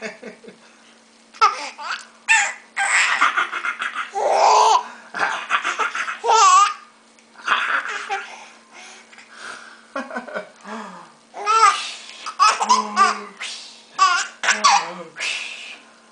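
A five-month-old baby laughing in repeated bursts, some rising into high-pitched, wavering squeals, with short breaths and pauses between them.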